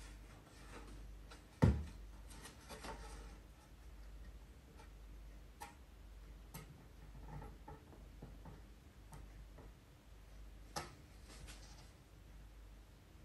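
A plywood sheet set down onto a wooden stand frame with one sharp knock about two seconds in, then light sliding and tapping as it is shifted into place, and a smaller knock near the end.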